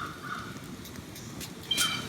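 A bird calling: a loud call with several stacked tones about a second and a half in, over a low steady rush of background noise.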